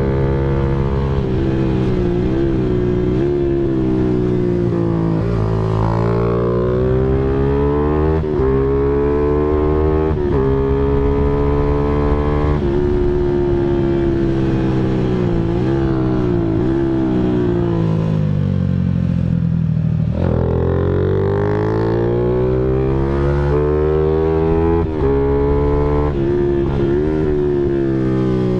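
Honda Sonic 150R's single-cylinder four-stroke engine under way, its pitch climbing under throttle and dropping sharply at each gear change or roll-off, over and over.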